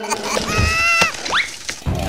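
Cartoon sound effects: a high, squeaky, voice-like note held for about half a second, then a quick rising glide, with a low steady hum starting just at the end.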